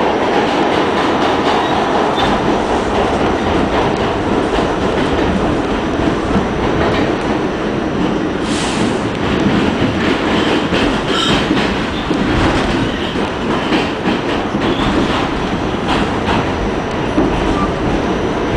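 Pullman Standard R46 subway car running through a tunnel, heard from inside the car: a steady rumble and rattle of wheels on the rails with scattered clicks from rail joints, and a brief hiss about halfway through.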